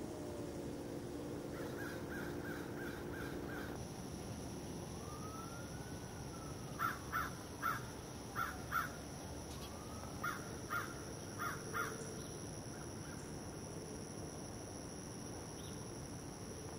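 A crow cawing in runs of four to six quick calls, three runs in all, the later ones louder. A faint tone rises and falls once in the background.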